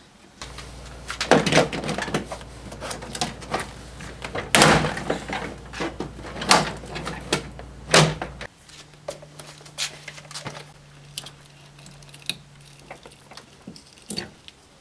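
Plastic retaining clips of a Dodge Ram door panel snapping loose one after another as the panel is pried off with clip removal pliers. There are about half a dozen sharp pops over the first eight seconds, then lighter clicks and rustling of the panel, over a low steady hum that stops about eight seconds in.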